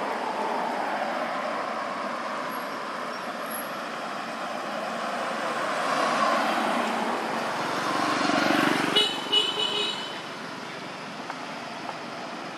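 Steady traffic noise from passing road vehicles, swelling as a vehicle goes by about eight to nine seconds in and then dropping away. Near the end of the pass comes a brief series of high-pitched tones.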